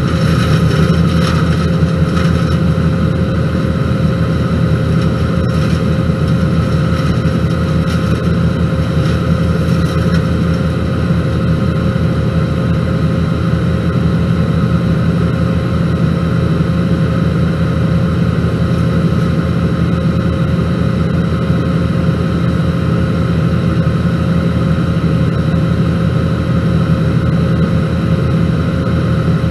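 A heavy-equipment diesel engine running steadily at a constant speed, with a few faint clanks in the first ten seconds.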